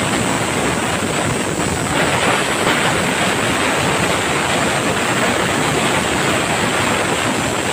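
United aluminium pressure cooker whistling: steam hissing loudly and steadily out past the weight valve, a bit stronger from about two seconds in. The whistle is the signal that the cooker has reached pressure, counted to time the rice.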